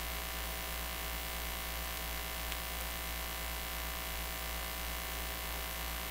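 Steady electrical mains hum and buzz, with no music or voice over it, and one faint click about two and a half seconds in.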